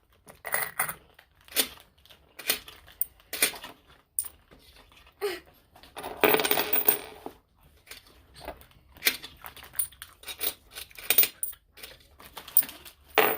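Coins clinking as they are counted out by hand, a string of short sharp clicks, with a denser rattle lasting about a second some six seconds in.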